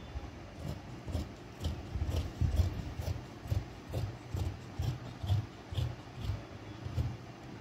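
Large tailor's shears cutting through fabric along a chalk line: repeated snips, about two a second, each a crisp click with a dull knock, stopping near the end.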